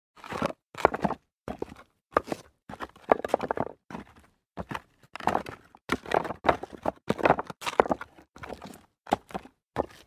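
Footsteps crunching over loose rock debris, about one and a half steps a second. Each step is a short gritty crunch of stones shifting underfoot, with silence between steps.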